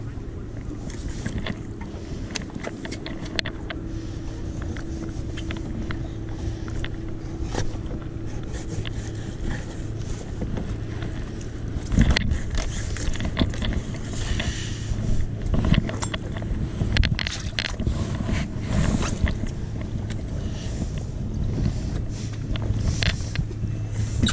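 Suzuki 350 V6 outboard idling with a steady low hum, under scraping and knocking from fish fillets being handled on a cutting board. The knocks come thicker from about halfway through.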